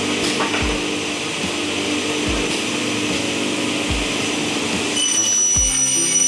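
Background music with a slow, steady beat, a deep thump about every second and a half under held chords, over a steady whirring hiss; near the end a higher ringing layer comes in.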